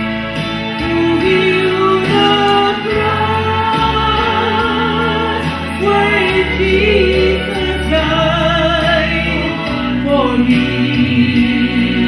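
A woman singing a Christian worship song solo into a microphone, her voice wavering with vibrato over a sustained instrumental accompaniment.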